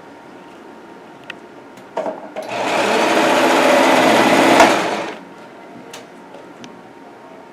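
Electric sewing machine stitching in one run of about two and a half seconds, starting a couple of seconds in, with a few clicks just before it.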